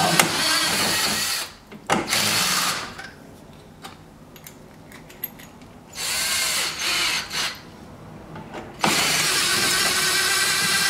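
Cordless drill drilling out the rivets that hold a car's side skirt on, working from underneath in bursts: it runs about a second and a half, again briefly about two seconds in, stops for a few seconds, runs in short bursts around six to seven seconds in, then runs steadily from about nine seconds in.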